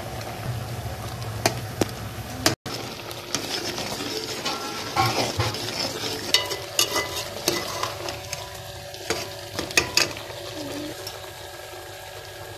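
A metal spoon stirring potatoes and chopped tomatoes in a pot of bubbling, oily gravy while the contents sizzle, with sharp clinks of the spoon against the pot several times.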